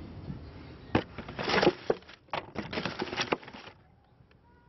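Handling noise: a sharp knock, then about three seconds of irregular rustling and scraping that stops suddenly.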